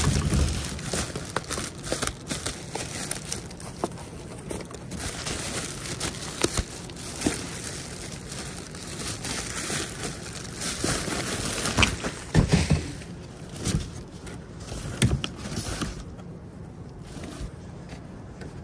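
Black plastic trash bags rustling and crinkling as gloved hands rummage through them, with scattered knocks and scrapes of things being handled.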